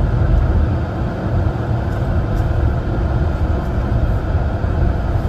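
Steady low road and engine rumble inside a moving car.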